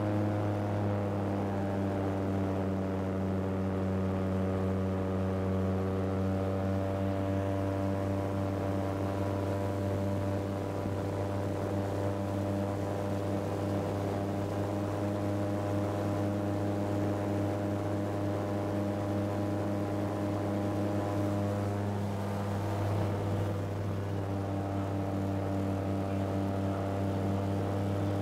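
Titan Tornado II light aircraft's engine and propeller droning at a steady pitch, heard from inside the cockpit while descending low over fields on approach. The higher part of the drone fades for a while past the middle and comes back near the end.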